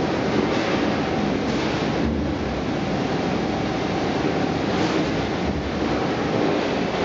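Steady machinery noise of a potato chip production line: conveyor belts and their drive motors running, with a faint steady hum.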